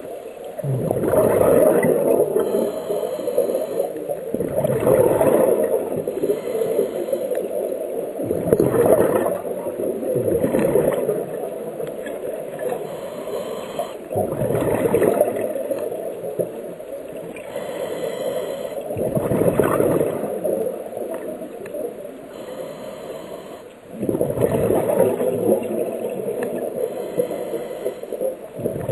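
Scuba diver's regulator breathing heard underwater: exhaled air gurgles out as bubbles in bursts every four to five seconds.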